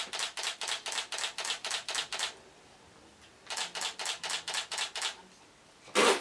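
Still-camera shutter firing in continuous burst mode, about six or seven frames a second, in two runs with a short pause between them.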